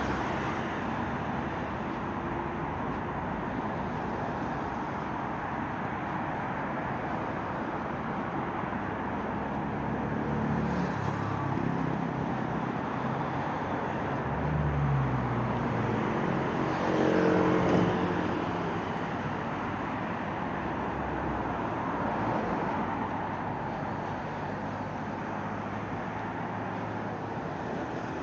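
City street traffic: a steady wash of road noise as cars go by, with a heavier vehicle's engine passing close and loudest about 17 seconds in.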